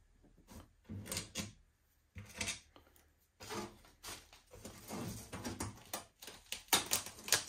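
Irregular clicks, knocks and scraping of a plastic housing being worked loose by hand from a steel vending-machine door, as the old, brittle adhesive holding it gives way.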